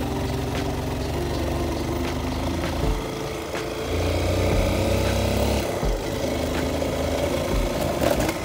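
Motorcycle engine running steadily while riding a rough dirt road, its pitch stepping up about three seconds in, with a low rumble through the middle.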